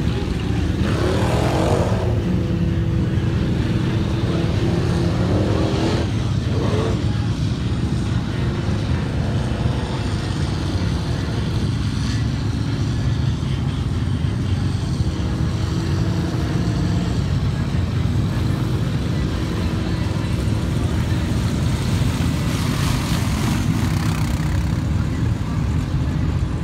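Several off-road engines from lifted mud trucks and ATVs running in a mud pit, a steady heavy rumble with an engine revving up and back down a couple of times in the first several seconds.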